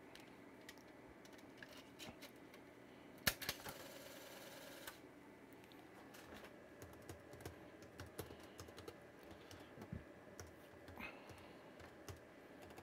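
Scattered light keystrokes on a computer keyboard as the INITIALIZE command is typed in. A sharper click comes about three seconds in, followed by a brief buzz.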